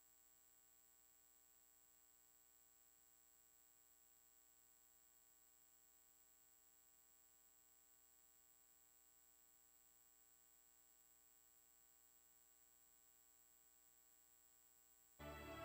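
Near silence: the sound track has dropped out, leaving only a faint, steady electrical hum.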